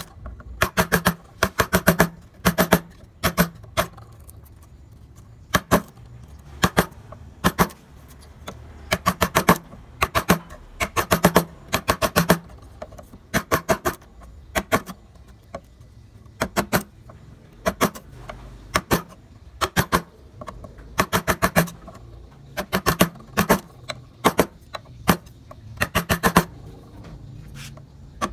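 Wooden mallet driving a carving chisel into wood in quick bursts of several sharp taps, with short pauses between bursts.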